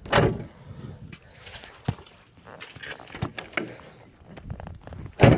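Two loud bangs, one at the start and one near the end, with lighter knocks and clicks between.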